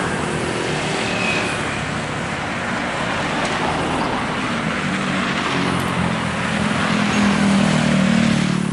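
Road traffic passing steadily, with a vehicle engine growing louder over the last few seconds.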